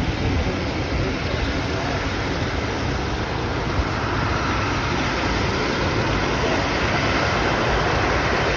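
Twin-engine widebody jet airliner's engines running at taxi power as it rolls past, a steady rushing noise that grows slightly louder over the last few seconds, with wind buffeting the microphone.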